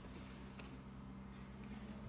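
Quiet room tone with a steady low electrical hum, and two very faint ticks.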